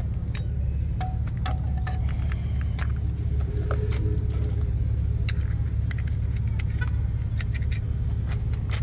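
A steady low rumble, with scattered light metallic clicks and taps as the removed truck belt tensioner and hand tools are handled.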